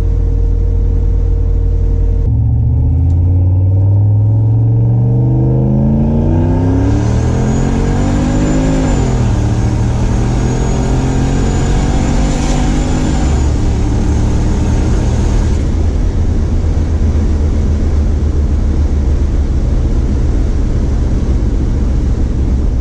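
Turbocharged LS V8 in a Chevrolet C10 pickup, heard from inside the cab, going to full throttle about two seconds in: the revs climb, drop as it shifts up about nine seconds in, and climb again until it backs off around thirteen to fifteen seconds in. A high whistle from the turbo rides over the pull. Afterwards the truck cruises with a steady low engine drone and wind through the open windows.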